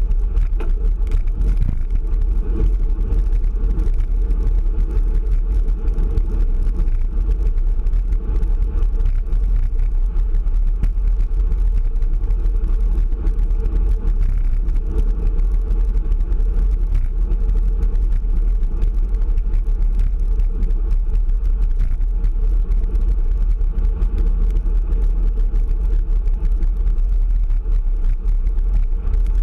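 Steady low rumble of wind buffeting a camera microphone on a road bike's handlebars at speed, mixed with tyre and road noise.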